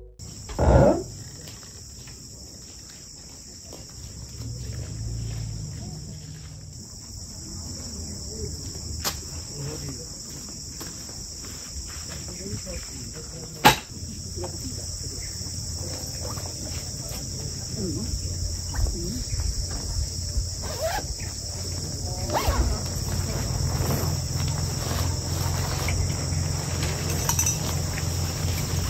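A steady, high-pitched insect chorus with a low rumble of wind on the microphone underneath. Scattered rustles and knocks from gear being handled grow busier toward the end, and there is one sharp click about halfway through.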